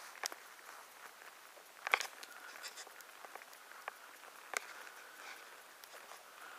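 Faint outdoor ambience with a few scattered sharp clicks and taps, the loudest about two seconds in and another about four and a half seconds in.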